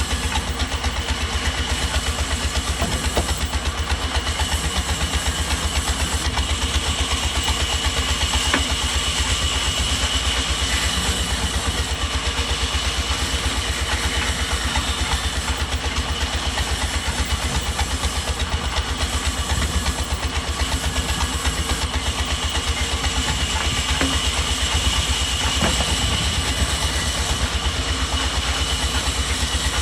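Sawmill machinery running steadily, with a fast, even low throb under a steady high whine.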